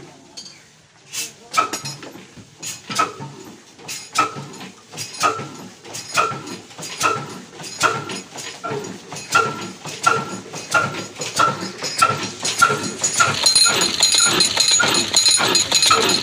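Old single-cylinder 'black' diesel engine (22–24 hp, big flywheel) catching after being turned over by hand, then chugging in slow, even beats about twice a second, each with a ringing bark. Near the end the running fills out, with a steady higher hum over the beats.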